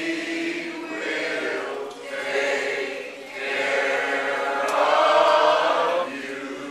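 Church choir singing a slow hymn in long, held phrases, loudest about two-thirds of the way in.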